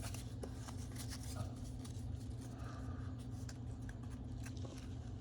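Pokémon trading cards being handled and slid against one another: faint scattered scratches and small ticks over a steady low hum.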